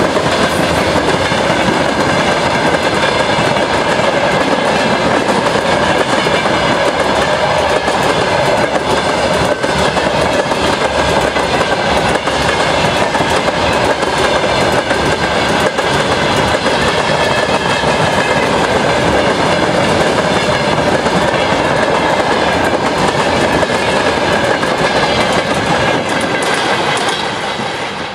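Freight train's hopper and open gondola wagons rolling past close by, steel wheels on the rails making a steady, loud clatter. The sound falls away near the end as the last wagon passes and moves off.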